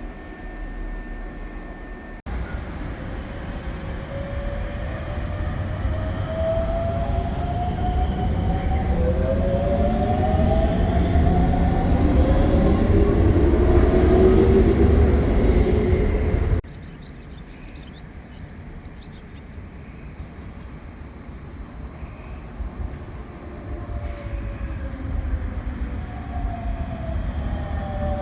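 Electric commuter train of the Shibayama Railway 3600 series running with rail rumble and rising traction-motor whines that build up as it accelerates and approaches. The sound cuts off abruptly about 16 seconds in, then becomes quieter, and another rising motor whine begins near the end.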